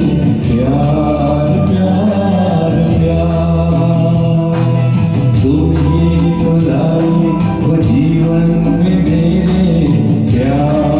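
A man sings a Hindi film song over a karaoke backing track with a steady bass line and beat.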